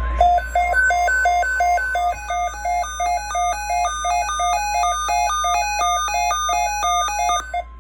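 An electronic melody of beeping square-wave tones, about four notes a second, in a repeating pattern that stops abruptly near the end.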